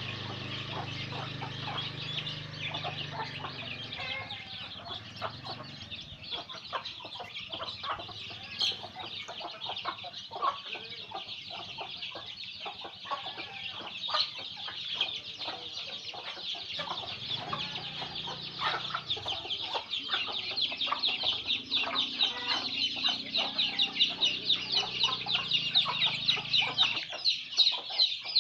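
A flock of free-range village chickens clucking and calling, over a dense high-pitched chirping chorus that grows louder in the last third.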